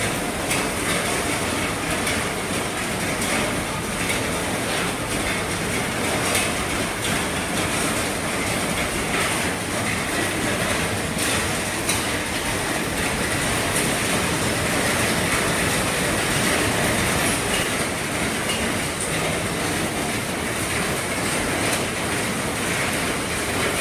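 Heavy rain falling steadily on an RV's roof: a dense, even hiss of drops with many small sharp taps scattered through it.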